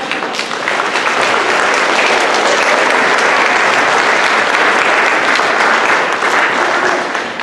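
Audience applauding, building up over the first second and starting to die away near the end.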